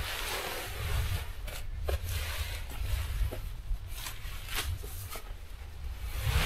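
Tent fabric rustling and crinkling as it is unrolled and shaken out by hand, over a low rumble of wind on the microphone.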